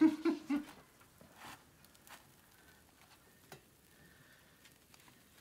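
A clunk as the wood cookstove's oven door is shut, with a brief low squeak or hum after it. This is followed by a few faint, scattered clicks and taps.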